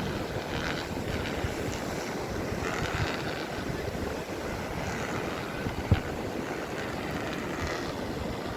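Wind rushing over the microphone, with sea surf behind it. There is a single sharp knock about six seconds in.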